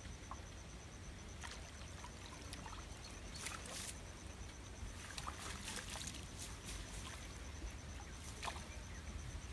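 Water splashing and dripping as a small fishing net is hauled up out of shallow water by hand, with a few short, sharper splashes along the way, over a steady low rumble.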